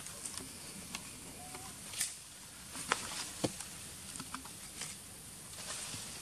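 A baby macaque lapping milk from a metal tray: irregular small wet slurps and clicks, with a few sharper ticks around the middle.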